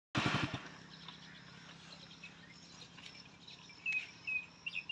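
Outdoor ambience: a bird chirping a run of short, high notes about four seconds in, over a faint steady hum. A brief rumble of microphone handling noise opens it.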